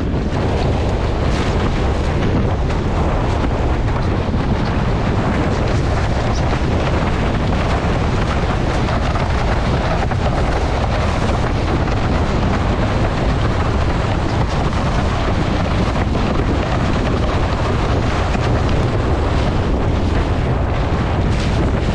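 Strong wind blasting across the microphone: a loud, steady, rumbling rush with no letup.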